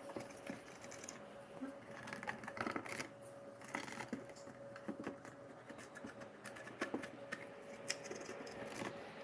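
Light, irregular clicks and taps of a plastic car instrument cluster being handled and wiped clean, over a faint steady hum.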